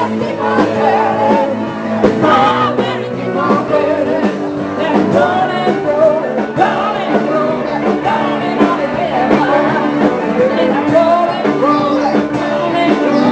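A live band playing rock and roll with a singer, over a steady beat.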